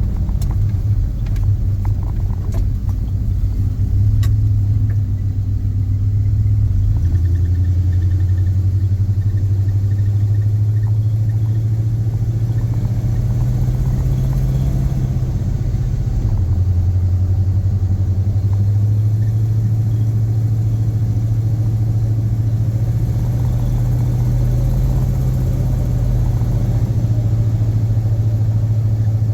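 A 1979 Dodge Power Wagon under way: a steady low engine and drivetrain drone that shifts in pitch about seven seconds in and again about sixteen seconds in, with faint higher whistle-like tones over it in between. The truck has a warbling, chirping front-end squeal that rises with wheel speed, which the owner suspects comes from worn front U-joints.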